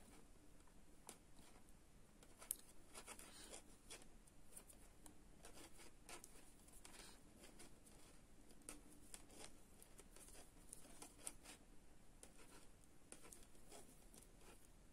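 Faint, irregular clicks and scrapes of thin metal knitting needles as stitches are knitted, with a sharper click about two and a half seconds in.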